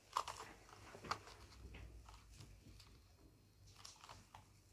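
Faint, scattered clicks and taps of hands working at a tealight pack to open it.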